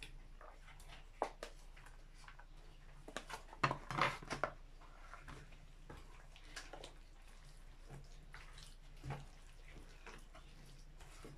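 Metal and wooden spoons knocking and scraping in a plastic basin as cut vegetables are mixed in kimchi sauce. Scattered short knocks, the loudest cluster about three to four and a half seconds in.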